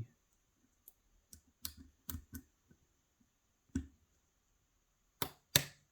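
Scattered small metallic clicks and taps of lockpicking tools working the sliders of a Yale 2000 Plus lock, with two louder clicks near the end.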